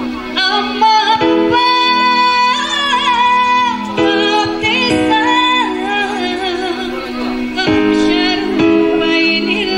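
A woman singing into a microphone with a live band's keyboard accompaniment; her voice wavers and bends through long, ornamented held notes over steady sustained chords.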